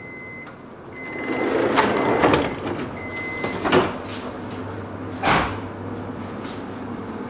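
Oslo Metro train's door-closing sequence: a short high beep repeats about once a second while the sliding doors shut with three sharp thuds. A low steady hum sets in near the end.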